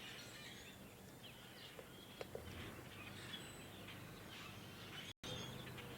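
Small birds chirping faintly in a tree: a scatter of short, high calls over a low, steady outdoor background hum.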